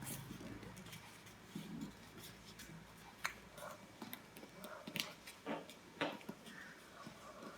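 Craft paper being folded and creased by hand: faint rustling with a few sharp clicks and taps, the clearest about three, five and six seconds in.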